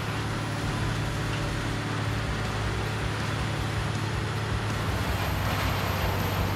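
Morbark 1100 barrel grinder running steadily, its 600 horsepower Caterpillar diesel engine humming under a continuous grinding noise.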